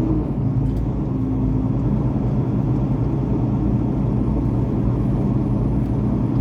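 Semi truck's diesel engine running steadily, a low drone.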